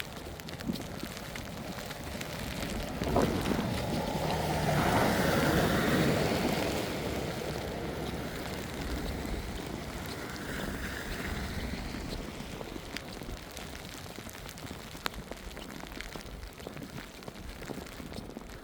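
A vehicle passing on a snowy street: its noise swells over a few seconds, is loudest about five seconds in, then slowly fades away.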